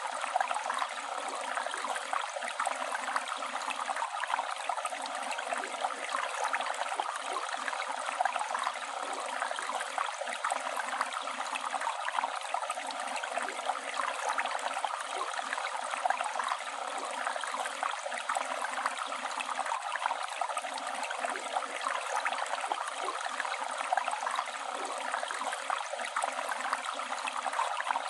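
River water flowing and rushing over rocks in a steady, unbroken stream, with fine splashing and gurgling throughout.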